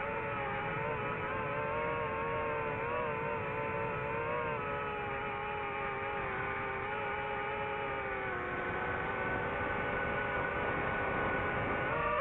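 DJI FPV drone's motors and propellers whining in flight, a steady pitched drone whose pitch wavers up and down with throttle changes.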